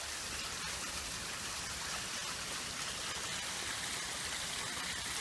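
Water running steadily over a pondless waterfall and down its rock stream.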